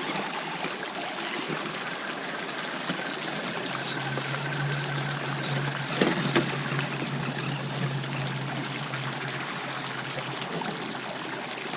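River water running over rocks, a steady rushing. A low steady hum joins it for about five seconds in the middle, and there are a couple of sharp knocks about six seconds in.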